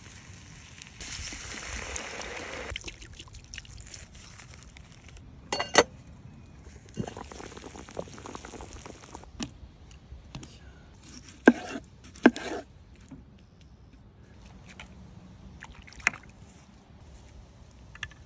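Food preparation: a hiss lasting about two seconds near the start, then scattered sharp clacks of utensils on a board or pan. The loudest is a pair of knocks about a second apart, two-thirds of the way through.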